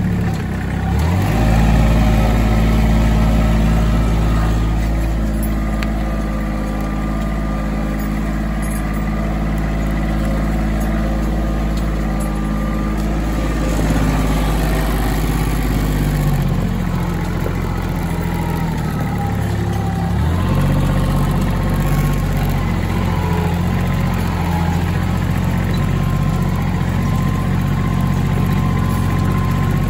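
Kubota L3400 tractor's diesel engine running. Its pitch rises about a second in and shifts again around the middle, with a thin whine above the engine note.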